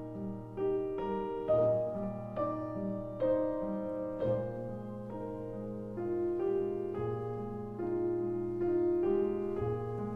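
Background piano music: a slow, gentle melody of single struck notes over held bass notes.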